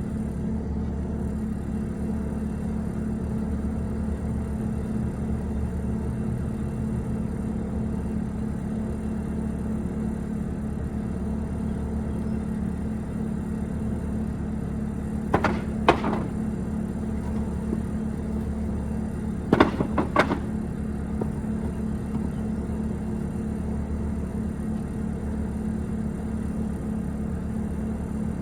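Steady low drone of a running motor or engine, with two pairs of sharp knocks a little past halfway, about four seconds apart.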